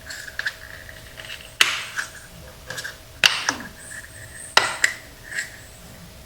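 Hand tools and small parts being handled during reassembly: three sharp clicks or clanks about a second and a half apart, with lighter taps in between, over a faint steady hum.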